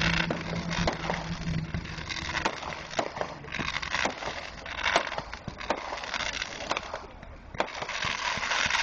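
Fireworks crackling: many small sharp pops in quick, irregular succession from crackling stars bursting overhead, growing denser near the end.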